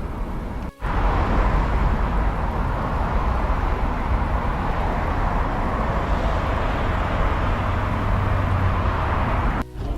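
Steady outdoor rushing noise like road traffic, broken by brief dropouts about a second in and near the end.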